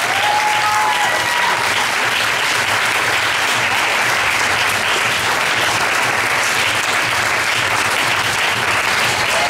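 Audience applauding steadily: dense, continuous clapping, with a short cheer near the start.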